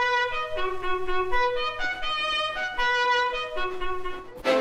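A bugle sounding a quick wake-up call, short notes stepping between a few pitches, the same phrase played twice. Near the end it gives way to a fuller music track.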